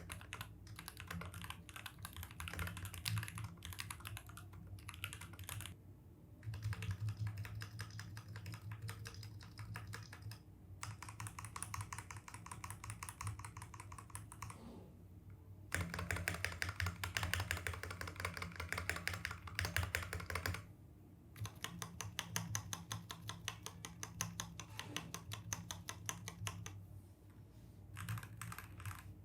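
Mechanical keyboard being typed on quickly: a dense patter of key clicks broken by a few short pauses.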